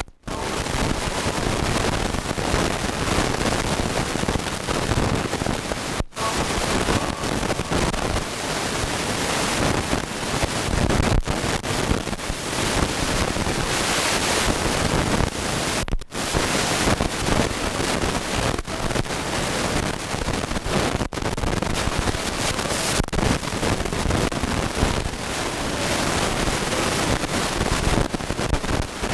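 Helicopter cabin noise in flight: a loud, steady rush of rotor, engine and wind noise, cutting out for an instant a few times.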